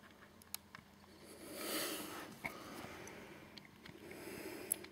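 Faint close-up room sounds: a soft breath through the nose that swells and fades about two seconds in, then light rustling and a few small clicks as a hand moves up to the camera.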